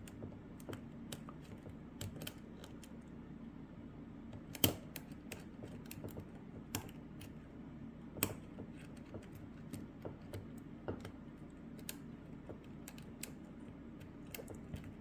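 Steel lock pick scraping and clicking against the pins inside the keyway of a Lockwood Twin brass lock, a scattering of light irregular ticks. Two sharper clicks stand out, about four and a half and about eight seconds in.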